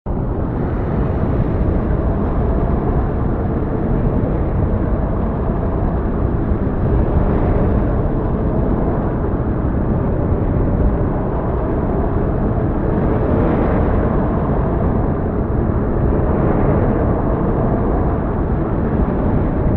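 Steady, low rushing noise of a snowfall ambience recording, like wind, with no distinct events. It starts abruptly out of silence and stays even throughout.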